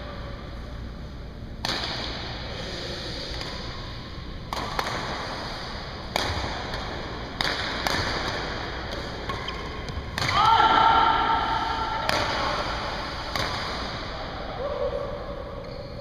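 Badminton racquets smacking shuttlecocks, sharp echoing hits every second or two across the gym. About ten seconds in, a drawn-out, higher sound stands out as the loudest part.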